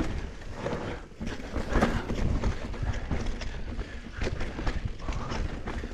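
Mountain bike rattling and knocking over rough ground at speed on a downhill trail, with a constant low rumble and a quick, irregular clatter of small impacts.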